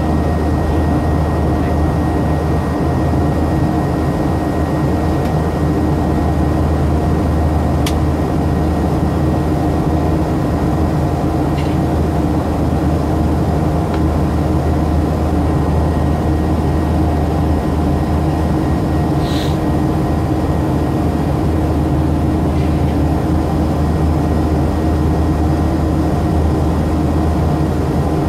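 Steady cabin noise of a jet airliner in its climb after takeoff: a loud, even drone of engines and airflow with a few constant hum tones. A single sharp click comes about eight seconds in, and a short higher-pitched sound about two-thirds of the way through.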